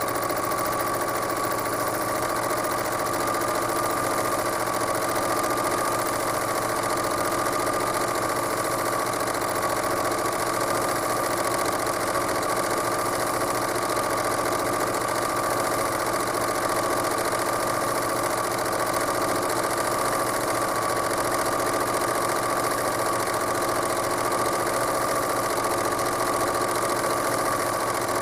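Home sewing machine stitching at a steady speed during free-motion quilting: a continuous motor whine that holds its pitch.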